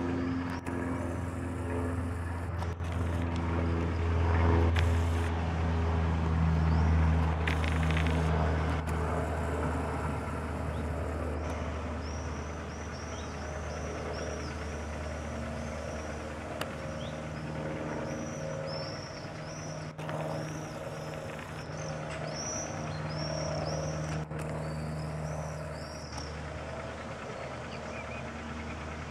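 Cessna F150L light aircraft's four-cylinder Continental O-200 piston engine and propeller droning overhead, loudest a few seconds in and then fading somewhat. In the second half a bird chirps over and over.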